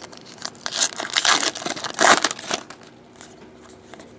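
Trading cards and their plastic wrapping being handled, with crinkling and rustling in bursts that are loudest in the first half, then a few light clicks.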